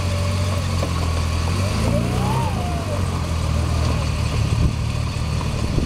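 Rock-crawling buggy's engine running at low revs while the tube-frame buggy crawls over boulders, with a brief rise in revs about two seconds in.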